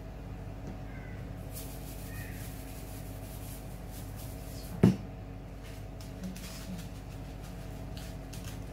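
Small plastic seasoning shaker shaken, a light patter of clicks, then one sharp knock about five seconds in as it is set down on the table, over a steady low hum.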